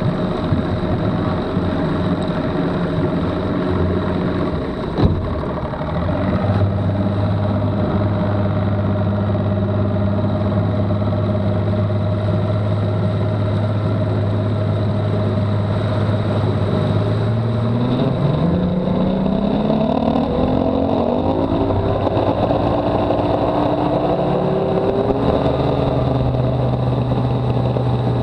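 Bass boat's Mercury outboard motor running steadily, then throttled up about two-thirds of the way through, its pitch climbing before it levels off higher. A single short knock about five seconds in.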